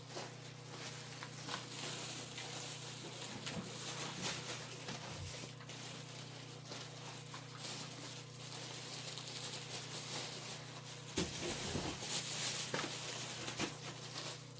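Items being packed by hand into bags: rustling and light knocks of packaged goods and plastic, over a steady low hum.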